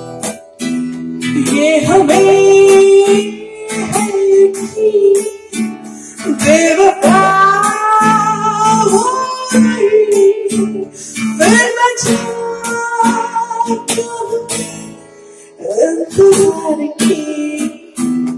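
A woman sings four long phrases of drawn-out, sliding held notes into a handheld microphone. Under her voice runs a backing track of strummed acoustic guitar with a steady rhythm.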